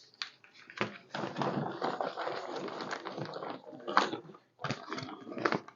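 Plastic ration-pack packaging crinkling and rustling as items are handled, with a few sharp crackles.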